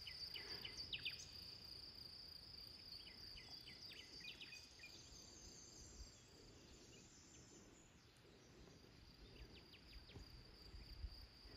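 Faint, steady, high-pitched insect drone from the surrounding forest, with a few quick chirping notes in the first few seconds.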